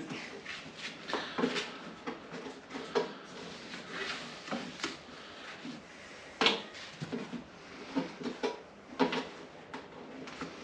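Hands pressing a rubber edge seal onto the rim of an aluminium toolbox: irregular light knocks, taps and rubbing, the sharpest a little past halfway.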